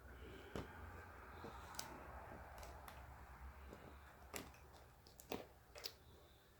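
Faint handling of laptop screen parts: a low rustle and about five scattered light clicks and taps as the LCD panel and its pieces are moved and set down.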